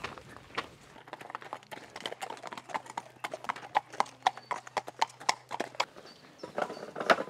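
Hooves of two ridden horses clip-clopping on a paved lane as they walk past, many quick uneven strikes overlapping. A few louder knocks follow near the end.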